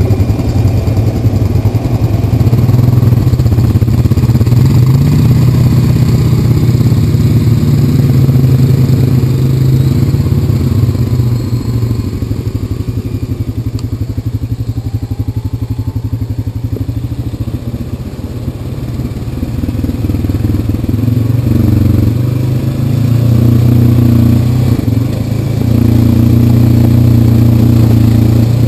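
Honda Rancher 420 ATV's single-cylinder four-stroke engine running at trail speed. It eases off and quietens for several seconds midway, then pulls harder and louder again near the end.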